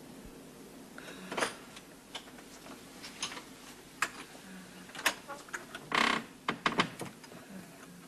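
A door being opened and someone coming into the room: a scatter of sharp clicks and knocks, with a louder rattle about six seconds in, over a low steady hum.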